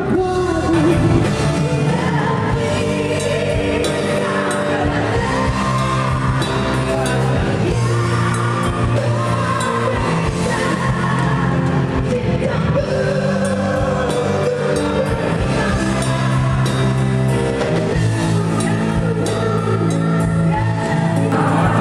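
A woman singing a song with wavering held notes over band accompaniment.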